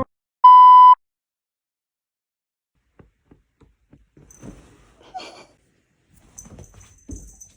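A single electronic beep tone, steady in pitch and about half a second long, sounds about half a second in. It is followed by a pause and then faint scattered clicks and short rustling noises.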